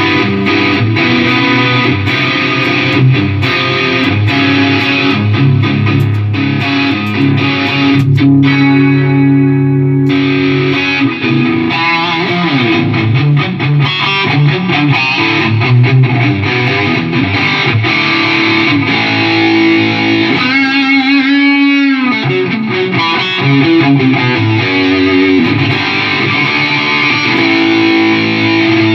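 Electric guitar played through a Line 6 Helix multi-effects unit during a sound test of the repaired unit: sustained notes and riffs, with wavering bent notes about two-thirds of the way through.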